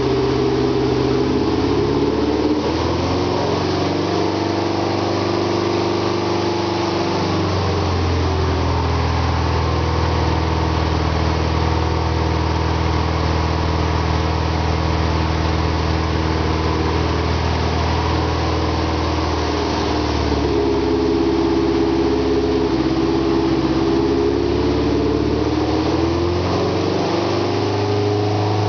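Subaru engine of a Rotorway Scorpion kit helicopter running on a ground test run, turning the rotor through its belt drive. Its speed eases down over the first few seconds, holds steady, then is brought back up about two-thirds of the way through and again near the end, as the rotor system is checked for smooth running at different rpms.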